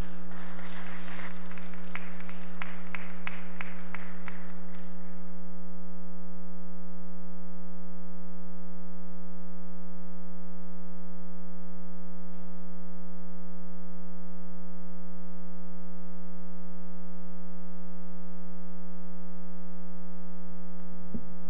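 Congregation clapping for about five seconds, fading out, then a steady mains hum.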